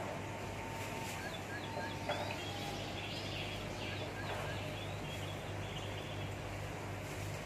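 Bird chirping in a run of short, quick high notes during the first half, over a steady low hum.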